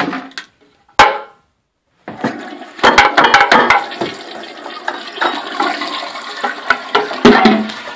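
Toilet flushing: a loud, sustained rush of water through the bowl that starts about two seconds in and carries on for about six seconds. It is preceded by a single sharp click about a second in.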